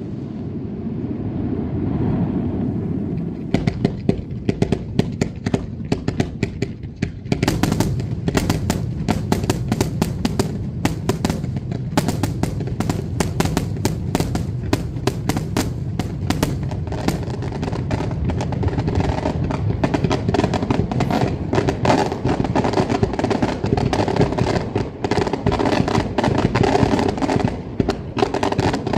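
Maltese daylight fireworks going off: a low rumble of bursts, then from about four seconds in a dense, continuous rattle of sharp cracks and bangs, several a second.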